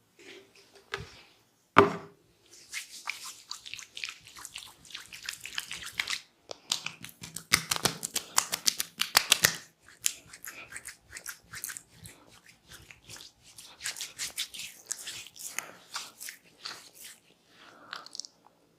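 Hands massaging skin and hair close to the microphone: crackly rubbing with many small clicks, a single sharp knock about two seconds in, and a quick run of strikes near the middle.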